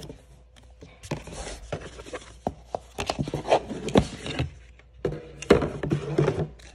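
A cardboard shoebox being opened by hand: scrapes and knocks as the ribbon and lid are worked off, with rustling of the cloth dust bags inside near the end.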